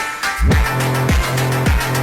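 Electronic dance music with a heavy beat: deep kick drums with falling pitch about twice a second over a sustained bass, the track dropping out briefly near the start before the beat comes back in.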